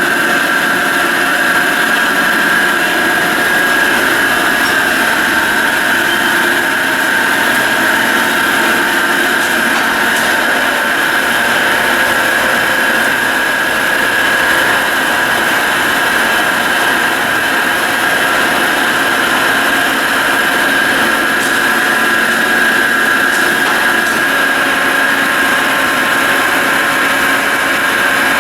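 Carlton Model 4A radial arm drill press running under power, with a steady high-pitched whine over an even mechanical hum.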